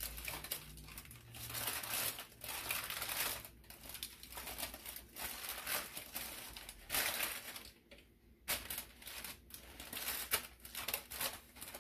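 Parchment paper crinkling and rustling unevenly under hands unrolling and pulling open a sheet of refrigerated pizza crust dough, with a short lull about eight seconds in.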